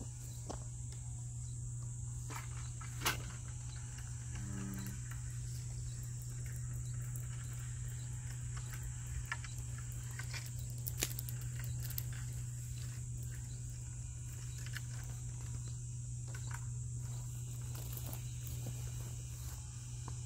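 Steady, high-pitched insect chorus, with a low steady hum beneath it and a few sharp clicks, the loudest about three seconds in and again about eleven seconds in.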